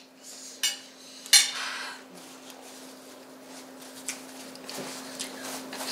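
Metal fork and spoon clinking and scraping on a ceramic dinner plate: two sharp clinks in the first second and a half, the second followed by a short scrape, then only faint small clicks.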